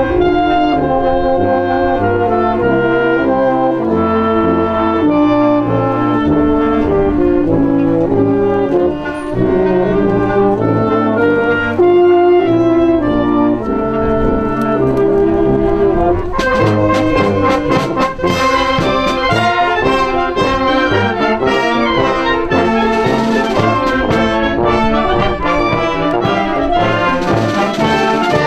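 A band led by brass, with cornets or trumpets and trombones, playing a tune under a conductor. About sixteen seconds in, percussion with cymbals joins and the sound turns fuller and louder.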